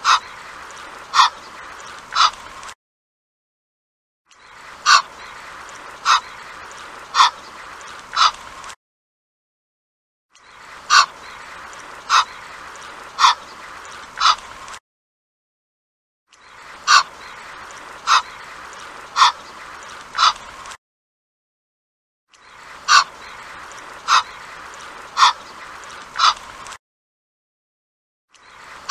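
Egyptian goose calling: short, sharp honks about one a second, four to a bout, over a steady background hiss. The bouts repeat every six seconds with brief gaps of silence between them.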